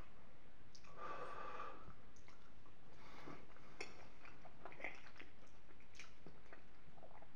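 Chewing a mouthful of penne in creamy béchamel sauce, wet mouth sounds with small scattered clicks.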